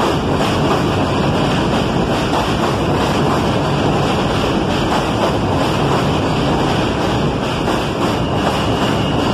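R160 subway train moving along an elevated station platform, a loud, steady noise of wheels on rails and car bodies going by. A faint high whine joins about a second before the end.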